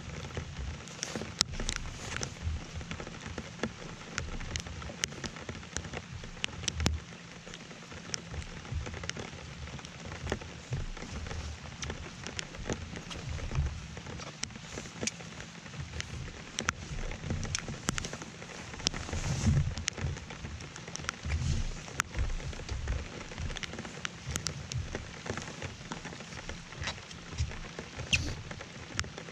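Rain falling on the boat and the camera: an even patter with many irregular sharp taps of drops landing close to the microphone, and irregular low bumps underneath.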